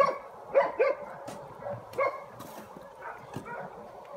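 Dogs barking in short, high-pitched yaps, several in quick succession in the first two seconds and a few fainter ones after, as food bowls are set out at feeding time.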